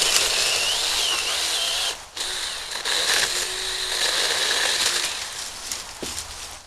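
Cordless 6-inch mini chainsaw running with a high electric whine as it cuts through grapevines, the pitch wavering under load. It cuts out briefly about two seconds in, then runs again and winds down near the end.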